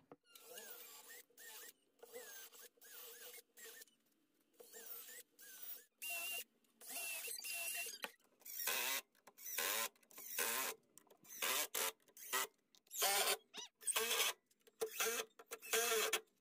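Repeated short scraping strokes with squeaky creaks, growing louder and more regular about halfway through, at roughly one stroke a second.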